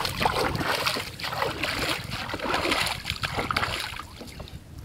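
Lake water splashing irregularly at the side of a boat as hands are dipped and rinsed in it, dying down near the end.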